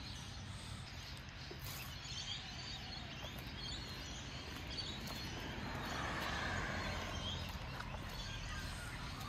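Outdoor ambience: a steady background hiss with a few faint bird chirps, swelling slightly about halfway through.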